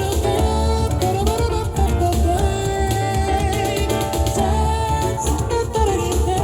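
Music played back through an Edifier powered bookshelf speaker and picked up by microphones: a gliding lead melody over a steady, heavy bass line.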